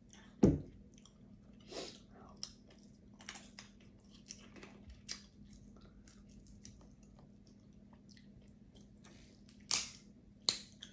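Close-up eating of cooked crab legs: chewing, with sharp clicks and cracks of crab shell, loudest about half a second in and twice near the end.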